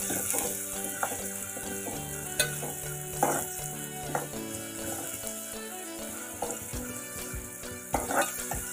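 Chopped onions sizzling in hot oil in a metal pot over a high flame, with a steel spoon stirring them and knocking against the pot a few times.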